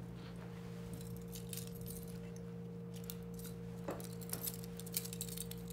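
Handcuffs being fastened on a wrist: light metallic jingling and small clicks, most of them in the second half, over a steady low electrical hum.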